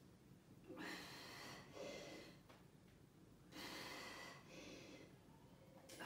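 A woman's faint breathing, about four breaths in and out, while she holds a forearm plank.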